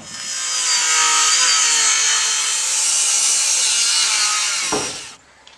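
Cordless circular saw cutting across a new wooden deck board, the blade running steadily through the wood with a whine for about five seconds, then stopping near the end.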